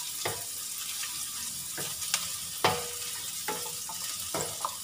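Chopped garlic and red onion sizzling in hot oil in a non-stick wok, with a steady hiss. A wooden spatula stirring knocks and scrapes against the pan at irregular intervals, a few knocks leaving a short ring from the pan.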